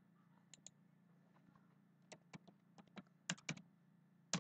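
About ten sharp computer keyboard keystrokes, irregularly spaced and mostly in the second half, as a username and password are typed into a login box. A faint steady low hum lies underneath.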